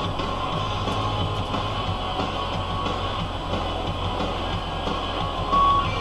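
Background music over the steady drone of a Valtra N91 tractor's diesel engine pulling a plough under load.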